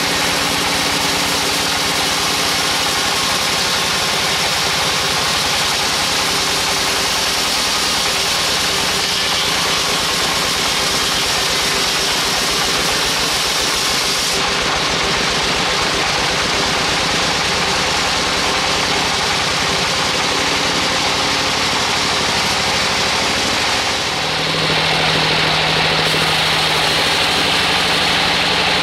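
Large vertical band sawmill running steadily as its band blade cuts lengthwise through a big log, a dense mechanical noise. The sound changes about halfway through and again near the end, after a brief dip, when a steady low hum comes up.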